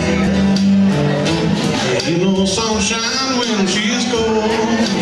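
Live acoustic guitars strummed and played, with a voice singing a wavering line through the middle.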